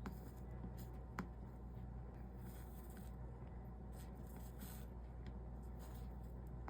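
Soldering iron working solder along the copper-foiled seams of a stained-glass panel, with faint sizzles from the flux and a light tick about a second in, over a steady low hum.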